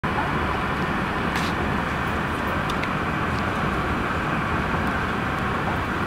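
Steady airliner cabin noise on final approach: the Airbus A380's engines and rushing air heard from inside the cabin, with a few faint clicks.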